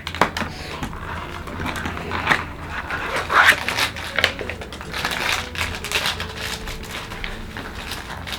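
Irregular small clicks and rustles of tiny plastic toy parts being handled, as roller skates are fitted onto a small toy doll's feet.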